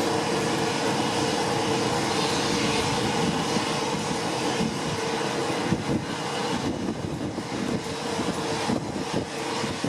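Boeing 737-700's CFM56-7B turbofan engines at takeoff power: steady, loud jet noise with a single held tone running through it.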